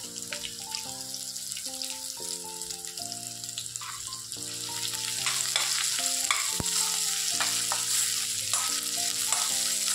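Sliced vegetables sizzling as they fry in hot oil in a stainless steel kadai, with a metal spoon scraping and clinking as they are stirred; the sizzling grows louder about halfway through. Soft background music with a simple melody plays under it.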